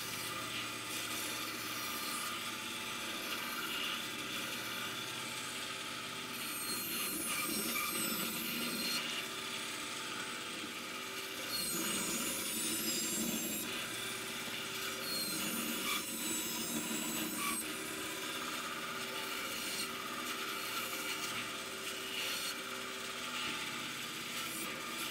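Bandsaw running, its blade skimming thin shavings off a wooden shoe last in light cuts. A steady hum runs under the cutting, and three times a high, wavering whine rises as the blade bites.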